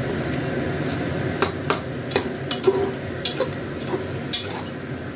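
Beef and spices frying in a pressure cooker pot with a steady sizzle, while a metal spoon stirs and scrapes through them. The spoon knocks against the pot rim several times from about a second and a half in.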